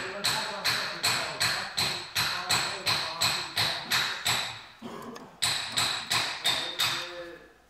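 Sharp metallic clicks in a steady rhythm, about three a second, each ringing briefly, with a short pause about five seconds in.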